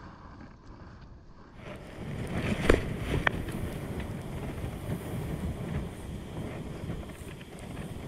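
Wind buffeting the microphone, which becomes louder and steady after about a second and a half. Two sharp clicks come close together around three seconds in, from a spinning reel and rod being handled while casting and reeling.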